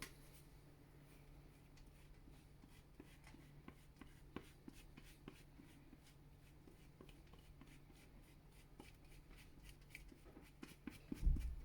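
Faint small clicks and light scrapes of a spoon spooning filling into Scotch eggs, with a short low thump near the end.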